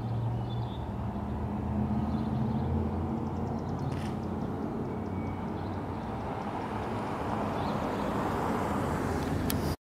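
Outdoor ambience of a steady low traffic rumble, with a few faint clicks and ticks. It cuts off suddenly near the end.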